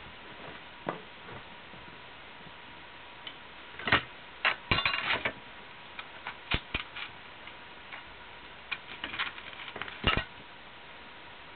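A scatter of short, sharp clicks and taps from small hard parts being handled or worked, bunched in quick clusters about four and nine seconds in.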